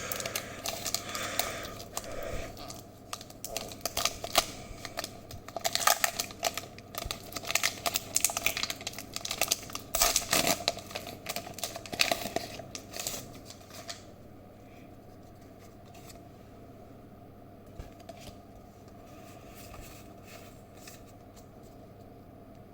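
A foil Pokémon booster pack wrapper crackling and tearing open under the fingers, a dense run of sharp crinkles and clicks. About fourteen seconds in this stops, leaving only a few faint ticks over a low hum.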